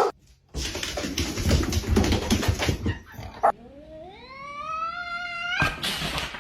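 Domestic cat giving one long yowl, about two seconds, rising in pitch and then holding. Before it come a couple of seconds of noise with no clear pitch, and after it a short burst of noise.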